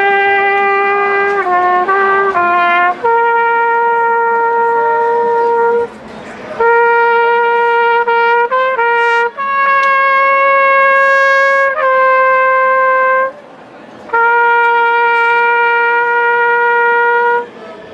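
A brass wind instrument played solo in a slow tune of long held notes, with a few short quick notes between them and two brief breaks for breath.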